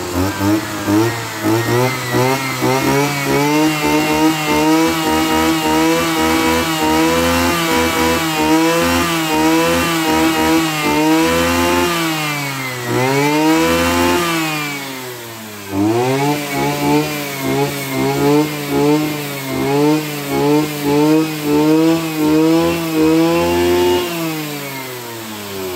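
Robin 302 brush cutter's 30 cc engine running at high revs with the throttle held open, its pitch wavering. About midway the revs drop and climb back twice, and near the end they fall away toward idle.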